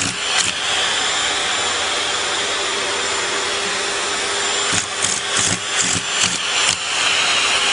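A vacuum cleaner running with a steady hiss and hum. The sound pulses quickly and unevenly at the start and again from about five seconds in, as if the airflow or the nozzle is being disturbed.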